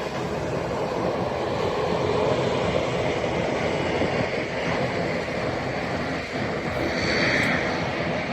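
Jet airliner engines running, a steady noise with a brief higher tone a little before the end.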